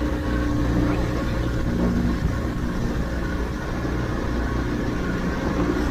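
Outboard motor on a small fishing boat running steadily at cruising speed while the boat is underway, a constant low engine hum.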